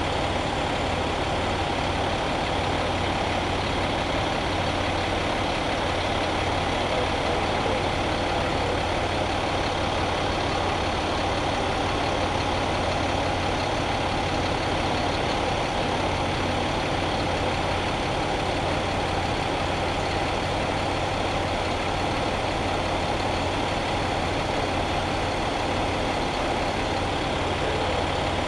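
Fire-rescue truck's engine idling steadily: an even, low, continuous hum that does not change.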